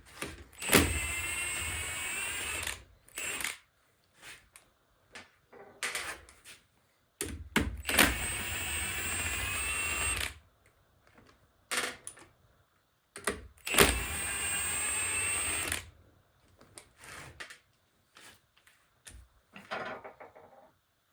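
A power tool runs in three bursts of two to three seconds each, with a steady high whine, and short clicks and knocks come between the bursts.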